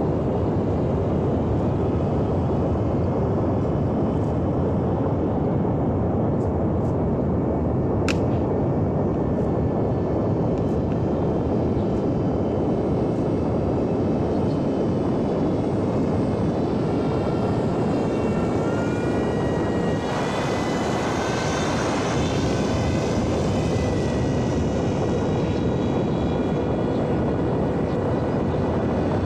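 Electric RC airplane in flight: the brushless motor and propeller whine faintly, shifting in pitch with the throttle, over a loud steady rush of air.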